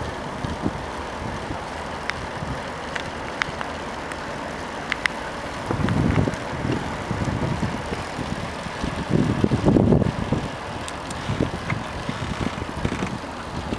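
Steady vehicle and road noise with wind buffeting the microphone in heavy gusts, about six seconds in and again around ten seconds. A few faint clicks come early on.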